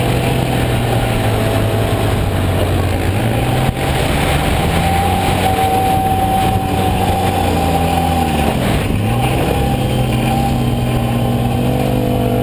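Side-by-side UTV's engine running under throttle while driving over sand dunes, heard from on board. Its pitch climbs about three seconds in, drops sharply near nine seconds and climbs back up.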